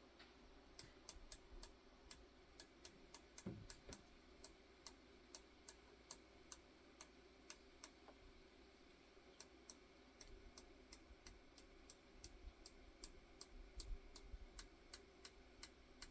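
Crossbow scope's elevation turret being turned down click by click, a run of faint, sharp clicks at about two to three a second with a short pause around the middle. It is the sight-in adjustment, about 40 clicks down, to lower the point of impact for bolts that were hitting high.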